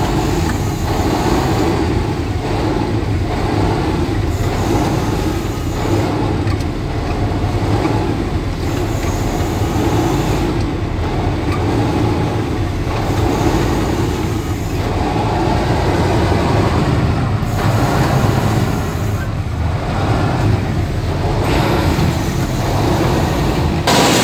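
Heavy diesel engine and water-cannon pump running steadily, heard from inside the cab of a mine water truck. The sound swells and eases every couple of seconds and turns suddenly brighter near the end.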